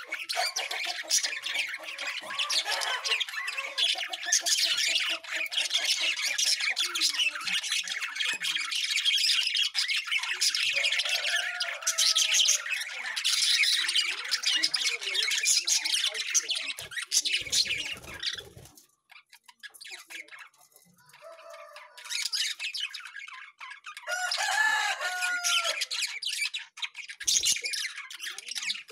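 Aviary flock of small parrots, budgerigars among them, chattering and squawking in a dense, rapid stream. The chatter breaks off about two thirds in, leaving a few softer calls, then picks up again near the end.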